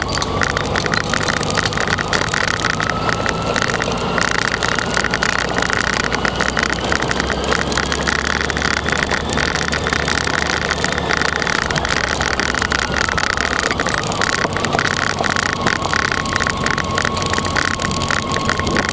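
Motorcycle running under way, with wind rushing and buffeting over the microphone. A faint whine rises slowly in pitch over the first few seconds and drops back a little past the middle.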